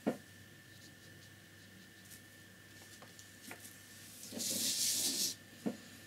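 A flat paintbrush loaded with tempera paint rubbed across paper, one scratchy swish about a second long, about four seconds in, with a few light taps before and after.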